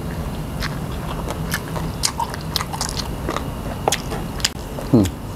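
Close-up eating: slurping and chewing spicy rice noodles and crispy squid tentacles, with many short wet mouth clicks and crunches. Near the end comes a brief vocal sound that drops in pitch.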